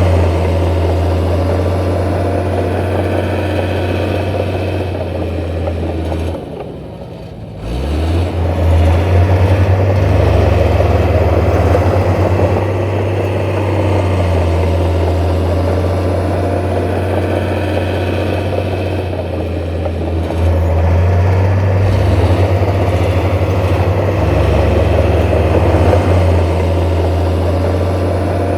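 Heavy diesel construction machinery running steadily under load, with a deep engine hum. The engine note drops briefly about seven seconds in, then comes back stronger.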